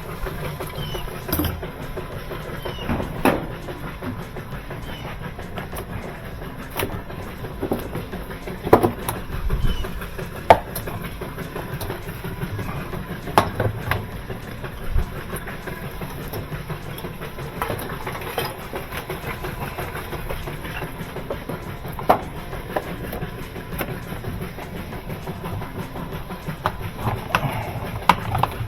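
Scattered clanks and knocks of hand work on a top-loading washer with its tub removed, over a steady background rumble.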